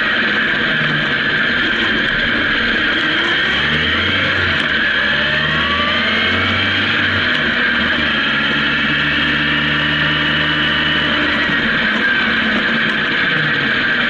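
Honda CB750K's air-cooled inline-four engine running as the bike is ridden along, heard from the machine itself; its pitch climbs a few seconds in as it accelerates, then settles into a steady note.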